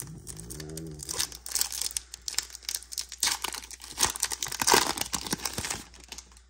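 Foil booster pack wrapper crinkling and being torn open, a dense run of crackles loudest about four to five seconds in.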